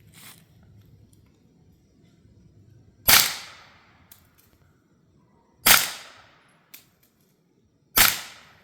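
Three suppressed 9mm shots from a CZ Scorpion Evo 3 S1 carbine fitted with a Dead Air Mojave 9 suppressor in its short setup and shot wet. Each is a sharp crack with a brief fading tail, and they come about two and a half seconds apart.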